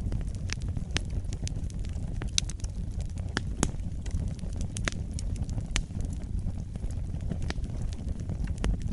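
Fireplace fire crackling: irregular sharp pops and snaps, several a second, over a steady low rumble of the burning.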